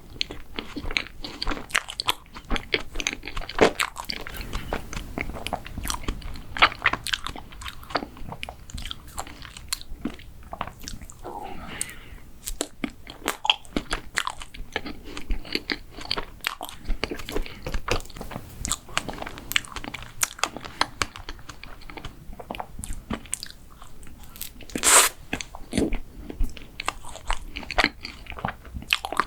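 Close-miked eating of a mint chocolate dessert: steady biting, chewing and crunching, with irregular crisp crackles throughout. One louder crunch about 25 seconds in.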